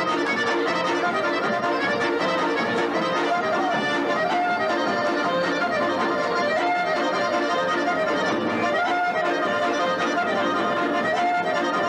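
Traditional folk dance music with an accordion carrying the melody over a steady, even dance beat.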